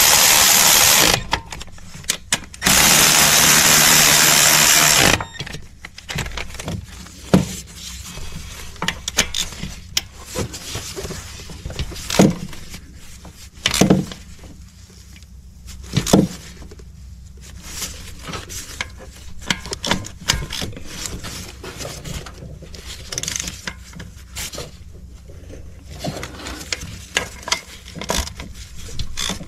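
A power tool runs in two bursts of a few seconds each while tightening the mounting bolts of a newly fitted AC compressor. Scattered clicks and knocks follow.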